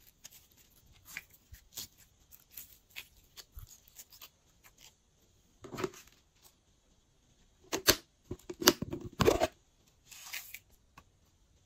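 Clear glitter slime being stretched and handled: soft sticky clicks and crackles, with a few louder crackling bursts in the second half.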